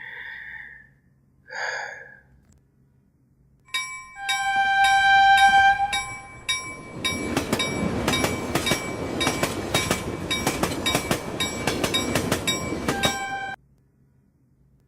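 A train horn sounds a held chord of several steady tones. The train then runs with a rapid, rhythmic clatter of wheels over rail joints while the horn tones carry on. The sound cuts off suddenly near the end.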